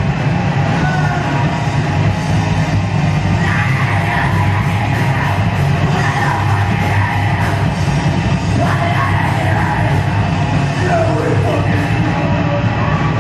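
Heavy metal music: loud distorted guitars and drums with shouted, yelled vocals coming in a few seconds in.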